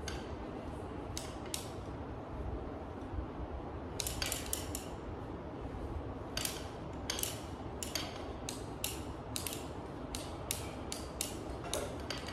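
Cable pulley machine creaking and clicking through repeated triceps pushdowns: short creaks and clicks, sparse at first and then one or two a second from about four seconds in, over a steady low background hum.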